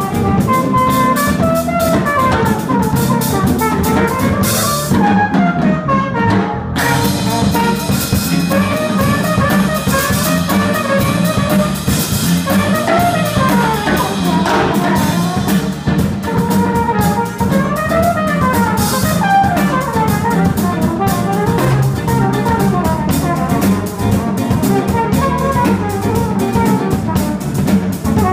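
Live jazz-funk band: a flugelhorn plays a melodic solo over drum kit, electric bass guitar and electric keyboard.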